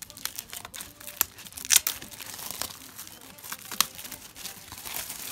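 Plastic shrink-wrap being torn and peeled off a CD case, crinkling and crackling, with the sharpest crackles a little under two seconds in and again near four seconds.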